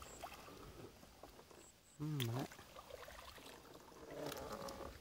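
Faint splashing and dripping as a fishing net is hauled out of the lake onto a bamboo raft, with a fish splashing where the net breaks the surface. A short wordless voice sound about two seconds in.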